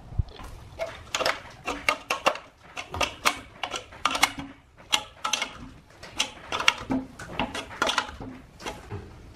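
Steel combination wrench clicking and clinking against a nut and bolt as the nut is tightened, in quick irregular runs with short pauses; some clicks ring briefly.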